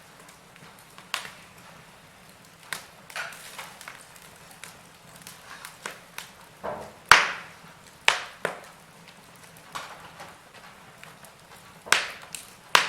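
Wood fire crackling in a fireplace: irregular sharp pops and snaps over a soft hiss, the loudest crack about seven seconds in.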